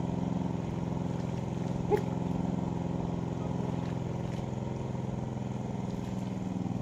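Small engine of a pond-draining water pump running steadily at constant speed. A single short knock sounds about two seconds in.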